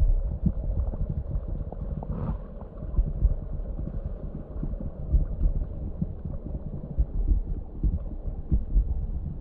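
Wind buffeting the microphone: uneven low rumbling with irregular thumps, over a fainter steady rush of a mountain stream.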